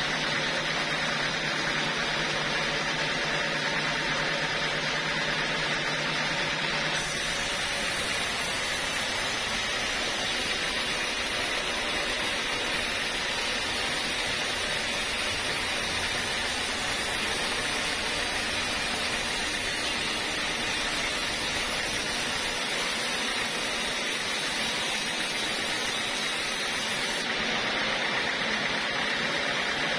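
Band sawmill running steadily, its blade sawing lengthwise through a teak log. A high hiss joins about seven seconds in and drops away near the end.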